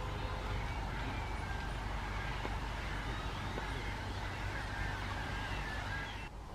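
A big flock of black-headed gulls calling over one another, with many short, harsh, overlapping calls above a steady low background noise. The calling breaks off suddenly near the end.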